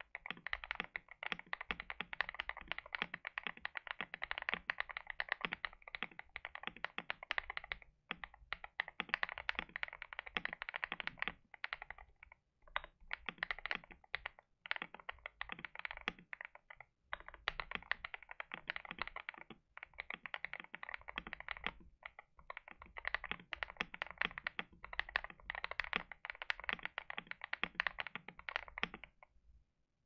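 Typing sound test on a modded KBD67 Lite mechanical keyboard with lubed Durock POM linear switches: a fast, steady stream of clacky keystrokes with short breaks every few seconds, stopping about a second before the end.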